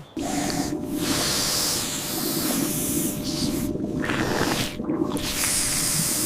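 A snake hissing in long, loud stretches broken by a few short gaps.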